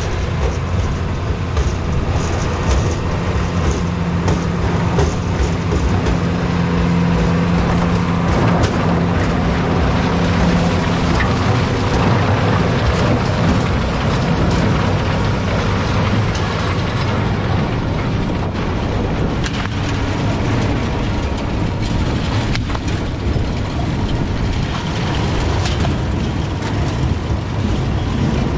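TIM three-row trailed sugar beet harvester and its tractor running while lifting beet: a loud, steady mechanical din of engine and lifting and cleaning gear, with many short knocks.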